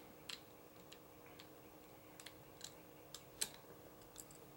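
Faint, scattered clicks and light taps of a folding knife and small screwdrivers being handled as the knife's thumb stud is worked on, the loudest click about three and a half seconds in.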